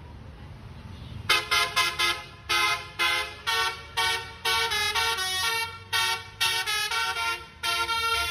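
Basuri telolet horn, a multi-tone vehicle horn, playing a tune. About a second in it starts with a run of short chord toots, about two a second, then moves to longer held notes that change pitch.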